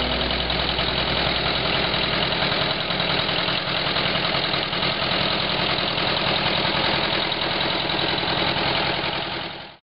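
1955 John Deere Model 70 tractor's two-cylinder engine idling with a steady, regular firing beat, then stopping abruptly just before the end.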